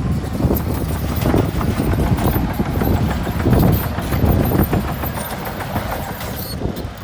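Heavy diesel earthmoving machinery running under load, a deep rumble with irregular clanking and rattling.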